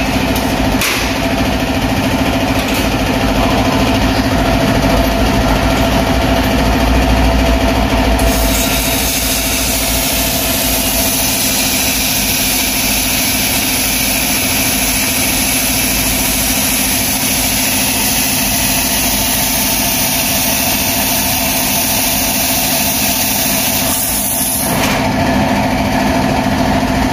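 Handheld fiber laser welder in cutting mode cutting 3 mm stainless steel plate with compressed-air assist gas. A loud steady hiss of gas and spatter begins about a third of the way in and stops a couple of seconds before the end, over a steady machine hum.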